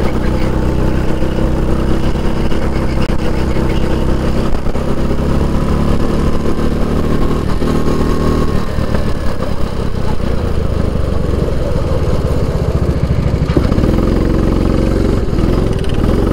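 Kart engine heard from the driver's seat, running steadily at speed; about halfway through it drops to a slower, rougher low-speed running.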